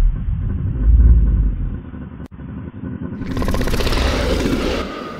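Dinosaur (T. rex) roar sound effects spliced together: a deep, low rumbling growl, cut off abruptly about two seconds in, then a louder, harsher roar comes in about three seconds in.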